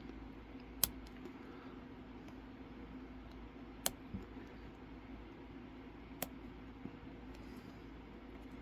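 A lock being picked: a few sharp clicks from the picking tools working in the lock, three louder ones two to three seconds apart with fainter ticks between, over a steady low hum.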